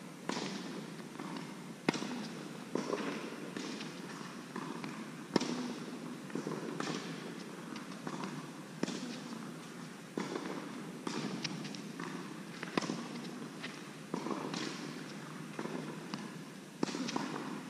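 Tennis ball struck by rackets and bouncing on the court in a rally: sharp, echoing hits about one to two seconds apart in a large hall.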